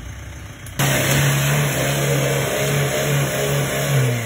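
Off-road 4x4's engine running hard at high revs, cutting in abruptly and loudly about a second in with a pulsing, uneven note over a broad hiss.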